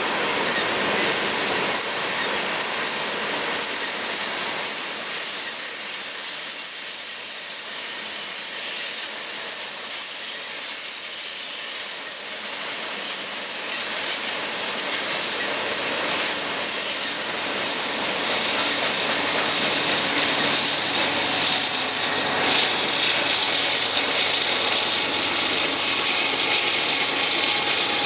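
A freight train's coal hopper cars rolling past with steady wheel and rail noise. About two-thirds of the way through it grows louder as the low, even drone of a Canadian Pacific GE AC4400CW diesel locomotive draws near.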